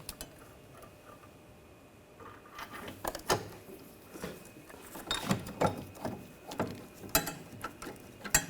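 Irregular metallic clicks and knocks from hub mounting bolts being fitted and started by hand. It is quiet for the first couple of seconds, then the clicking comes every half second or so.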